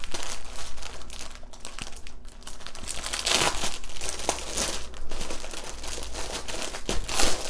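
Clear plastic bags of round resin diamond-painting drills crinkling as they are handled and taken out of their outer bag, with louder crackles about three seconds in and again near the end.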